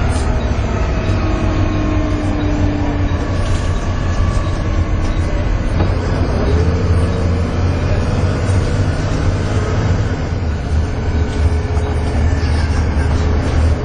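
Volvo B7TL double-decker bus's D7C six-cylinder diesel pulling hard, heard from on board. A steady low drone runs under a vacuum-cleaner-like whine, the 'hoovering'. The whining tones slide down in pitch over the first few seconds and climb again about halfway through.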